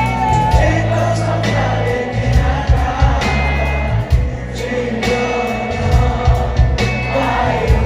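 Live rock band playing loudly with a singer: heavy bass, drum hits and a sung vocal line.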